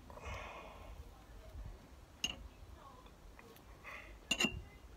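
Table knife scooping butter from a small ceramic pot and spreading it on a split cheese scone: a soft scraping at first, then sharp clinks of the knife against the ceramic, one about two seconds in and a quick pair with a short ring near the end.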